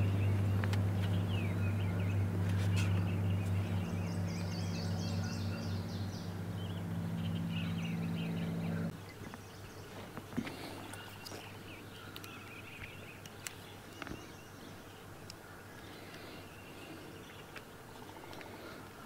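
A motor's steady low hum that cuts off abruptly about nine seconds in; after that, birds chirping and a few light knocks.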